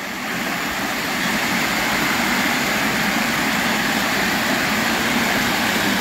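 Water spilling over a low concrete weir, a steady rush that grows a little louder over the first second, then holds.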